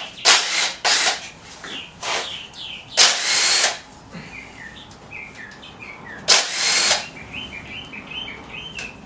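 A power tool, such as a cordless drill or impact driver, run in four short bursts while removing the oil pump bolts from an LS 5.3 V8; the longest bursts come about 3 seconds and 6.5 seconds in. Birds chirp in short falling notes through the second half.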